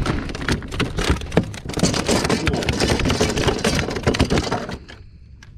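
A freshly landed fluke flopping on the plastic deck of a kayak: rapid irregular slapping and crackling that stops suddenly near the end.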